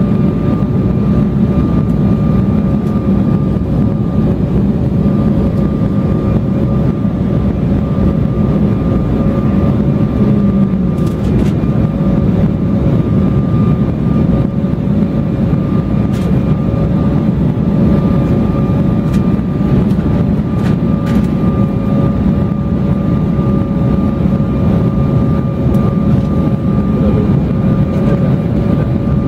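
Steady jet airliner cabin noise heard from a window seat during descent: a low rush of engine and airflow noise with a thin, slightly wavering whine above it.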